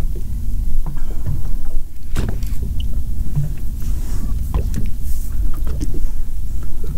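Steady low rumble, with scattered light clicks and taps as a Daiwa Lexa HD 300 baitcasting reel is cranked against a hooked lake trout, rod bent under load.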